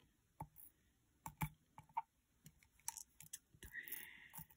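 Scattered light clicks of small dew-drop embellishments clicking against a glass dish and each other as they are picked out by hand, with a brief soft rustle near the end.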